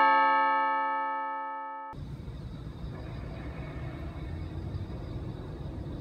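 The fading ring of a two-note ding-dong chime sound effect, cut off abruptly about two seconds in. Then a steady low outdoor background rumble.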